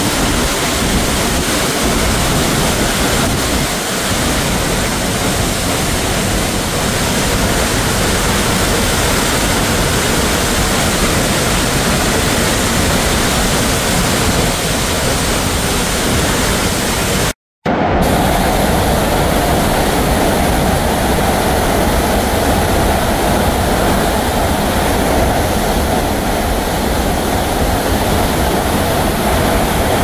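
Berglistüber waterfall in heavy flow, a loud steady rush of falling water close by. The sound cuts out for a moment a little past halfway, then carries on with a slightly different tone.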